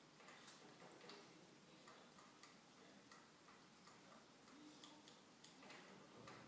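Near silence with faint, light ticks about two a second, slightly uneven in spacing.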